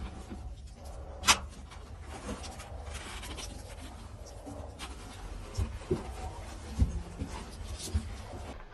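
Climbers going up iron ladder rungs set in a narrow brick chimney shaft: scuffing and rustling of hands, boots and clothing, with a sharp knock about a second in and a few smaller knocks later.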